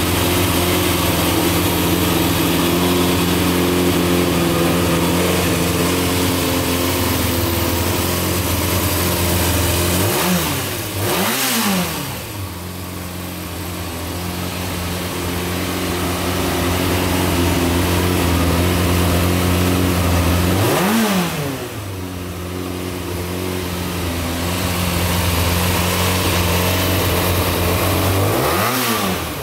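Yamaha Diversion 600's air-cooled inline-four engine idling steadily, with quick blips of the throttle that rise and fall in pitch: a double blip about a third of the way in, one about two-thirds in and one near the end.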